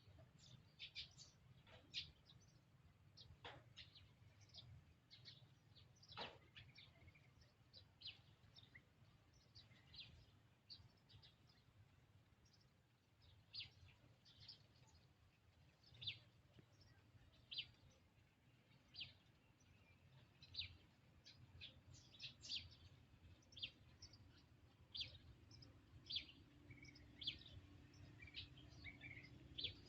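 Short high-pitched chirping calls, roughly one every second or two, over a faint steady low hum.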